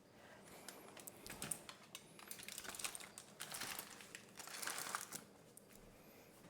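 Faint small clicks and soft crackly mouth noises as a bite of hot salmon is sampled and chewed, with several short stretches about midway through.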